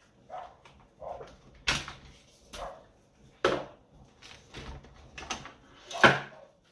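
Hard plastic clicks and knocks as the rear hose of a Dyson DC50 vacuum is worked free of its plastic clip, with light handling rattle between them; the loudest knock comes near the end as the hose comes out.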